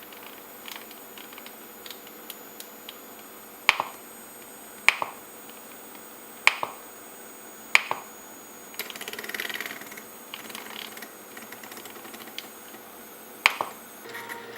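Sharp clicks from the Combo Cracker's controls as numbers are entered: five click-and-release presses about a second or more apart, with a stretch of soft rapid clicking from the rotary encoder's knob in between.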